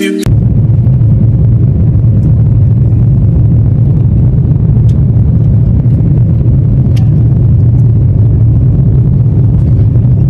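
Airliner cabin noise in flight: a loud, steady, low drone from the engines and airflow, with a few faint ticks.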